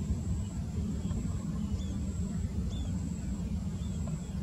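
Low, steady rumble of an Airbus A320's jet engines as the airliner climbs away after takeoff.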